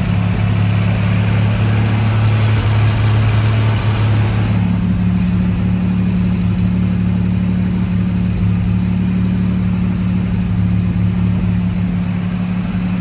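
A 1963 GMC Suburban panel truck's engine runs loud and steady at an even speed. A higher hiss over it eases off about four seconds in.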